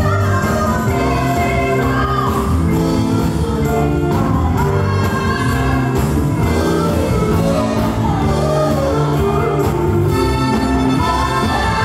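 Live band music with singing, loud and steady throughout.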